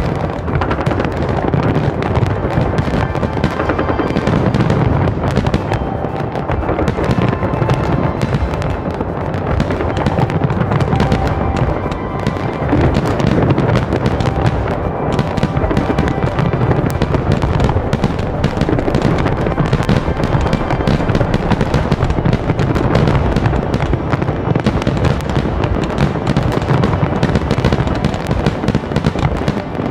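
Large aerial fireworks display, many shells bursting at once in a steady, unbroken volley of bangs and crackling.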